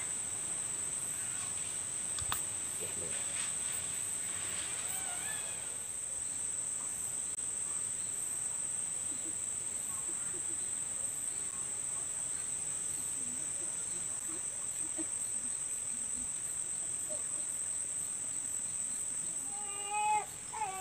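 Steady, high-pitched drone of insects shrilling outdoors, with a few faint clicks of small handling noises. Near the end an animal gives a few short, arched cries.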